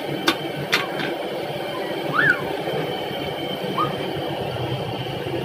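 A steady background din with two sharp clicks in the first second and two brief chirping sounds, one near the middle and one later.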